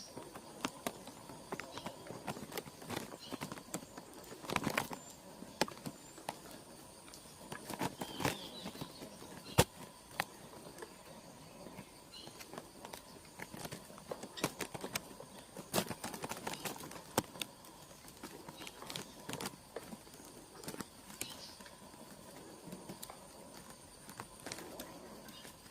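White-bellied woodpecker tapping and pecking at wood: sharp knocks at irregular intervals, one louder strike about ten seconds in. A faint steady high whine runs underneath.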